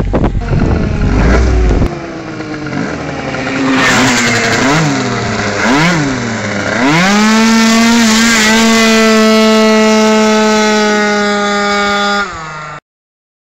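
Tuned scooter engine revved in two short blips, then opened to full throttle, its pitch climbing quickly to one steady high note held for about five seconds as it pulls away, then cutting off. Wind buffets the microphone in the first two seconds.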